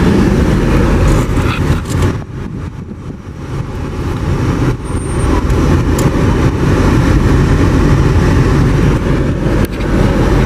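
Car driving, with steady engine and road noise that eases off briefly about two seconds in, then picks back up.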